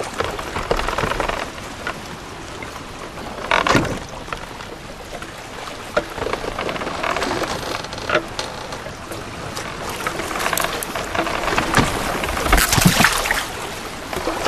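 Small waves lapping and sloshing against a wooden log raft on open sea, in irregular splashes, with a louder splash about four seconds in.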